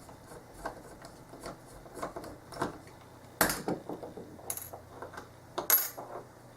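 Small metal clicks and taps from handling a mortise lock cylinder and its tools, with a few sharper clicks about three and a half, four and a half and nearly six seconds in.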